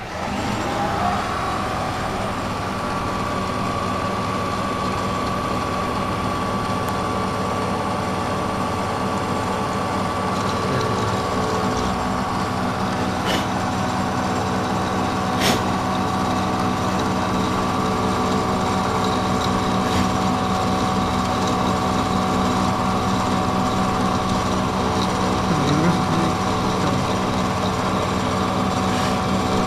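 CNC-retrofitted Bridgeport milling machine cutting a metal plate with an end mill: a steady machine whine with several held tones over the noise of the cut. Two sharp clicks come about 13 and 15 seconds in.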